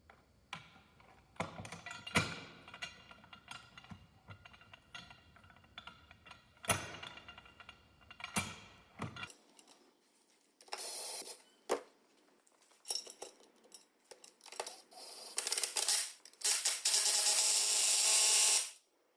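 Scattered metal clinks and taps with a ringing tone as the large caged bearing puller is fitted onto the final drive bearing and splines, followed in the second half by several short bursts of a steady rushing mechanical noise, the longest near the end.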